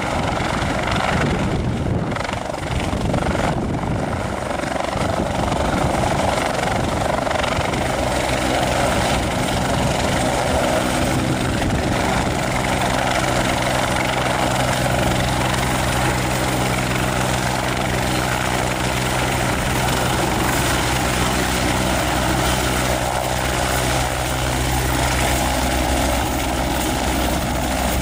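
Bell 430 twin-turbine helicopter hovering low and lifting away, its four-blade main rotor and turbines running at takeoff power in a steady loud rush. A steady low hum of several tones becomes clear about eight seconds in.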